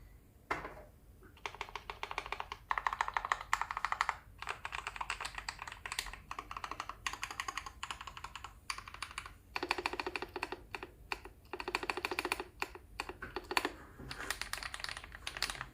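Typing on a modded Drop CTRL High-Profile mechanical keyboard with filmed, Krytox-lubed Drop + Invyr Holy Panda tactile switches, an aluminium plate, case and PCB foam, and doubleshot PBT keycaps. The keystrokes come in fast runs broken by short pauses, with a few single strokes between the runs.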